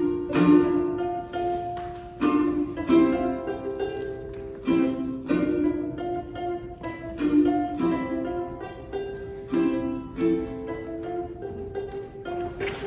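Ukulele playing a piece, with plucked and strummed notes that ring on between attacks.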